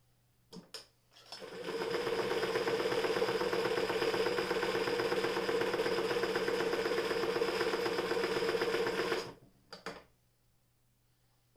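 Frister & Rossmann Model 45 heavy-duty zigzag electric sewing machine stitching through denim. After a couple of clicks, the motor spins up about a second in and runs at a steady speed with a fast needle rhythm and a constant whine for about eight seconds. It then stops, followed by two more clicks.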